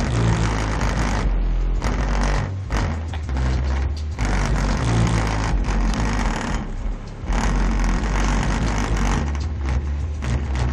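Loud bass-heavy music from a car's two Rockford Fosgate T2D415 15-inch subwoofers. The deep bass notes step up and down, with brief drops between passages.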